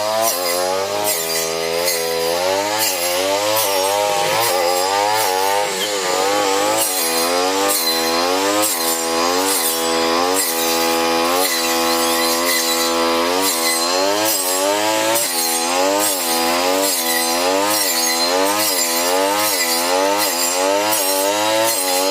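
Brush cutter engine running under load while chopping patchouli, its pitch rising and sagging about once a second as the blade bites, with a rasping cutting noise over it.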